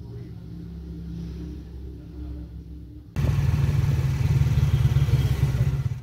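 A faint low hum, then about three seconds in a sudden cut to a tricycle's motorcycle engine running loud and steady, heard from inside the sidecar.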